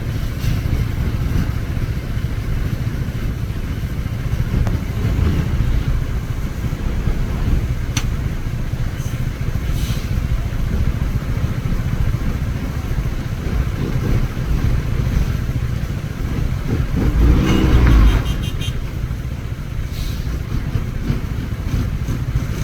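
Six-wheel truck engine running steadily, with a brief rev-up about three-quarters of the way in.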